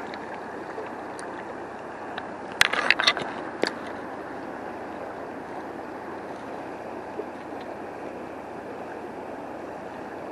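Fast, high river current rushing steadily, with a short cluster of sharp clicks and knocks about two and a half to three and a half seconds in.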